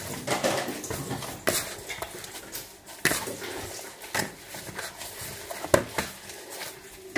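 Gloved hands kneading homemade play dough in a plastic bowl: irregular squishing and crinkling of thin plastic gloves, with sharp clicks and knocks against the bowl about every second.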